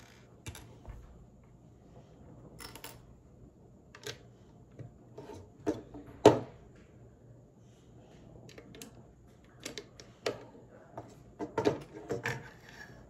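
Plastic Lego pieces clicking and clattering as they are handled and pressed together: irregular sharp clicks, the loudest about six seconds in and a quick run of them near the end.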